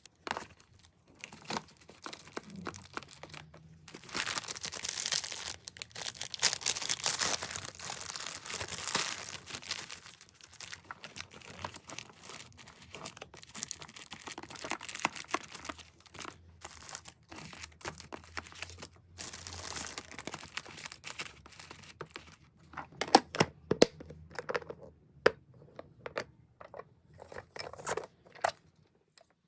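Packaging being handled by hand, crinkling and tearing, with a cluster of sharper clicks and knocks near the end.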